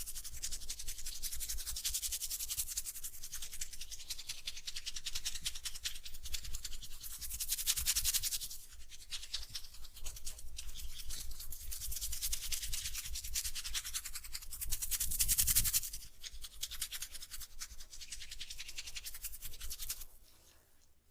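Hands rapidly rubbing and scrubbing oiled hair and scalp in a head massage: a fast, scratchy rustle that swells and eases several times, then stops near the end.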